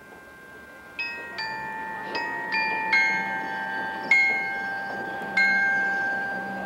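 Tuned metal mallet percussion of a marching band's front ensemble playing a slow, bell-like passage. After a quiet first second come about seven single struck notes, each left to ring on and overlap the next.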